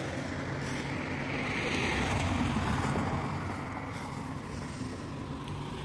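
Steady outdoor noise: wind on the phone's microphone and a wash of street traffic.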